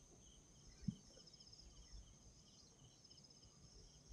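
Faint chorus of insects chirping in steady, pulsing trills, with one soft thump about a second in.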